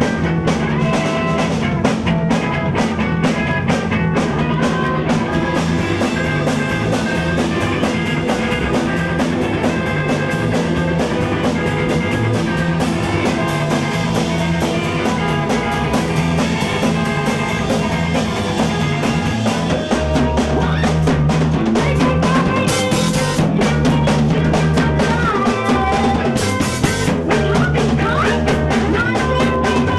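Rock band song, mostly instrumental here: a drum kit plays a fast, steady beat over bass and guitar. The low end grows heavier about two-thirds of the way through, with two cymbal crashes in the second half.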